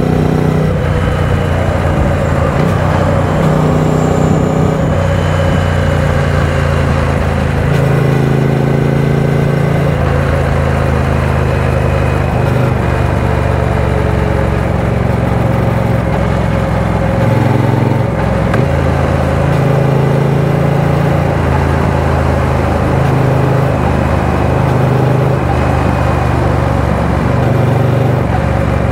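Triumph Speed Twin 900's parallel-twin engine running at highway speed, its note stepping up and down in pitch several times.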